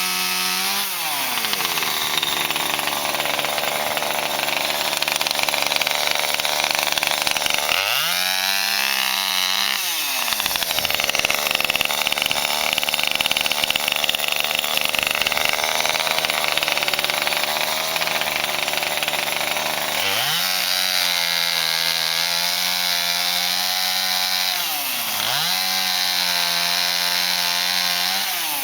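Chainsaw cutting through the wood of a fallen peppermint tree, running hard in the cut. Its engine note drops and climbs back several times: about a second in, again around eight to ten seconds in, and twice in the last third.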